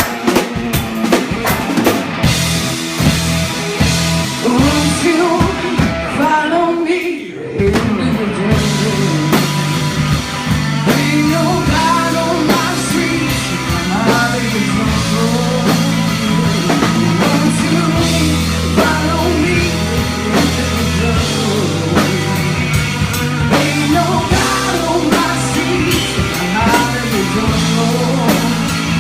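A rock band with two drummers playing live in rehearsal: drum kits, guitar and a singing voice. The band breaks off briefly about a quarter of the way in, then comes back in full.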